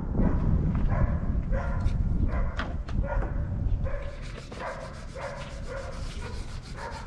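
A dog barking over and over at an even pace, a bit more than one bark a second, with a low rumble under the first half.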